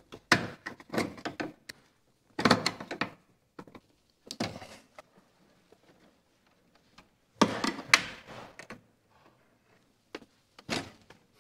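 Clatter and knocks from gloved hands, wires and a screwdriver working inside a metal breaker panel, in about five short bursts with pauses between them.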